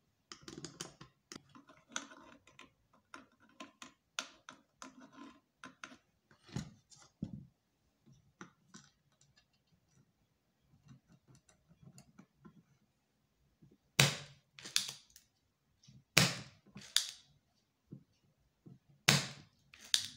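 Desoldering an amplifier board's TDA7379 IC: scattered light clicks and scraping of the soldering iron and tools on the board, then from about fourteen seconds in three pairs of sharp, loud snaps, a spring-loaded solder sucker being cocked and fired to pull solder off the IC's pins.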